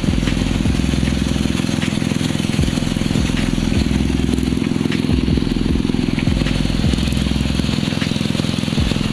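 Kelotok river longboat engine running steadily under load while towing a second boat whose engine has broken down, with occasional short knocks.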